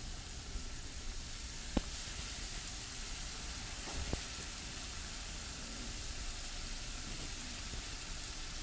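Chopped onion, green chilli and capsicum frying in oil in a pan with soy and chilli sauce, making a steady sizzle. Two light clicks come through the sizzle, a couple of seconds apart.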